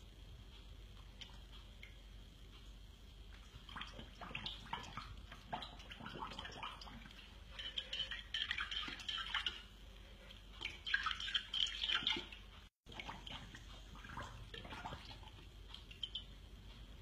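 A dog licking and lapping at a bowl in several bouts of quick, wet clicking a second or two long.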